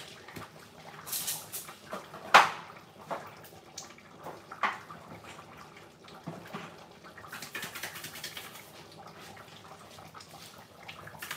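A pot of curry chicken bubbling at a simmer, with a few sharp clicks and knocks, the loudest about two and a half seconds in.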